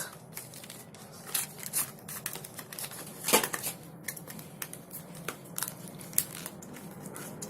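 Phone box packaging and accessory packs being handled: scattered rustling of paper and plastic with small clicks, and a sharper tap about three seconds in.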